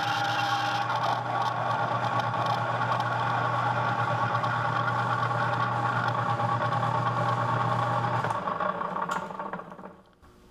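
Metal lathe running under power with a drill bit in the tailstock chuck cutting into a steel hydraulic cylinder rod: a steady hum with several steady tones. About eight seconds in the motor is switched off and the spindle spins down, so the sound fades away.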